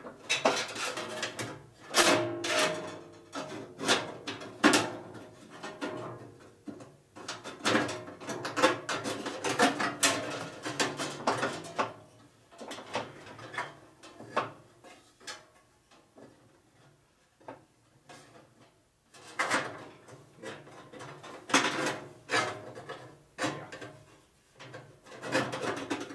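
A steel bandsaw blade clanking, rattling and scraping against the frame and blade guides of a 1960s Boice-Crane 14-inch bandsaw as it is forced into the machine. The blade is as wide as the guide gap and won't go through. The knocks come irregularly, with a quieter stretch in the middle.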